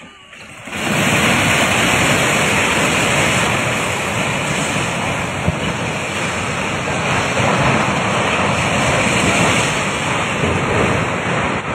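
Loud, steady rushing roar of the flooded Swat River in full spate, with wind buffeting the microphone; it starts abruptly about a second in.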